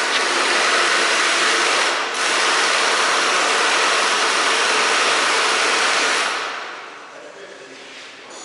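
Loud, steady rushing hiss of blowing air, with a brief dip about two seconds in; it stops and fades out about six seconds in.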